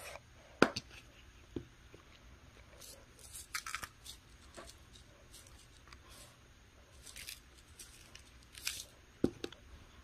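Quiet kitchen handling sounds: a seasoning bottle and paper bowls of cooked ramen noodles being handled. There is a sharp click near the start, scattered short rasping bursts as the seasoning goes on, and a soft knock near the end.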